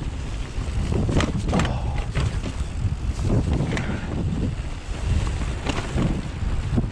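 Strong gusting wind buffeting the microphone in a snow blizzard, a heavy low rumble, with a few short knocks about a second in and again near the end.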